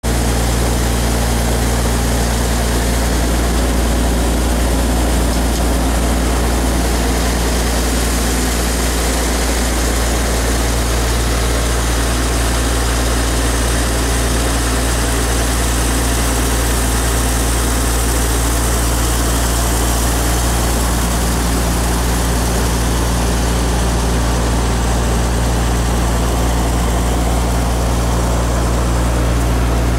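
Engine-driven generator set running steadily, powering a 60-inch carbon-arc searchlight: an unchanging low engine hum with a steady hiss above it.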